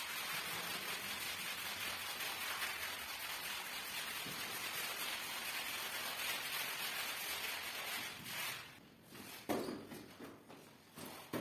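Long-handled stiff brush scrubbing a soaking, soapy rug on a tile floor: a steady wet scrubbing noise. About eight seconds in it stops, and a few separate swishes follow as a squeegee pushes the dirty water across the tiles.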